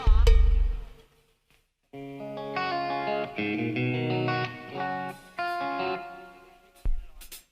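Drum hits with a heavy low end, like a kick drum being checked, stop about a second in. After a short gap, a guitar plays a phrase of chords and single notes during a live-band soundcheck, and a few more drum hits come in near the end.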